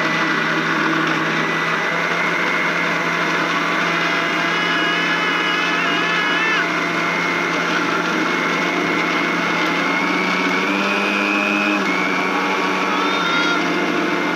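Electric mixer grinder (mixie) running steadily at full speed, grinding food.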